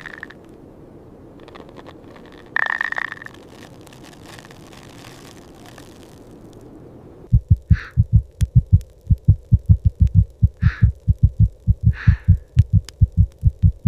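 A steady faint hiss with a couple of brief high squeaks. From about halfway through, a fast, even heartbeat thumping at about four beats a second takes over, with a few short high squeaks over it.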